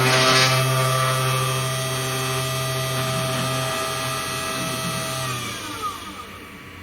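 3018 CNC router's small spindle motor running with a steady whine, with a burst of cutting noise at the start. About five seconds in, the spindle switches off and winds down, its pitch falling away.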